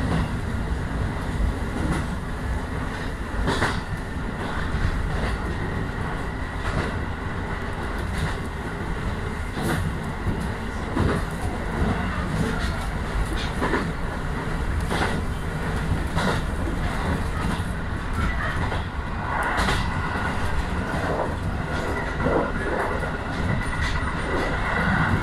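Electric train running along the track, heard from inside the car: a steady rumble with irregular clacks as the wheels pass over rail joints.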